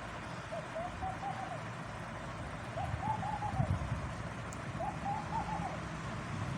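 A bird calling in three short phrases of quick, wavering, mid-pitched notes, over a steady low rumble.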